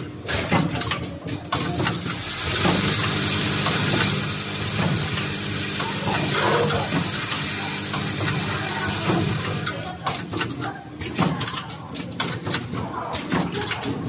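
Closed-end plastic zipper slider mounting machine running: its feed and mounting mechanism clicks and clatters rapidly over a steady hum. A long loud hiss of air runs from a couple of seconds in until about ten seconds in.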